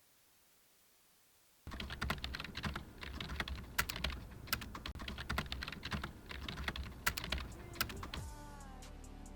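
Fast typing on a computer keyboard: dense, irregular key clicks that start suddenly about a second and a half in and stop about a second before the end, where music comes in.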